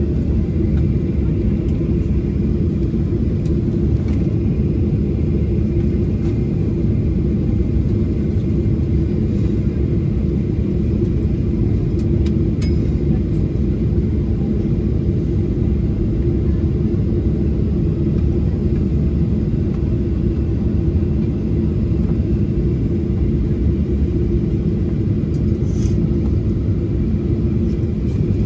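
Steady low rumble inside the cabin of a Boeing 737-800 taxiing after landing, its CFM56-7B engines at idle thrust.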